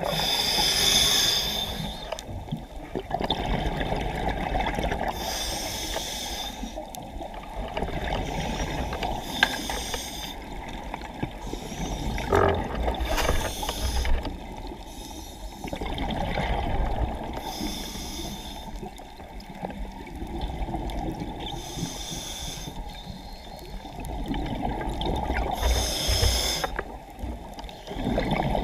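A scuba diver breathing through a regulator underwater. Each inhale is a hiss, about five of them spaced five to eight seconds apart, and each exhale is a rumbling gurgle of bubbles in between.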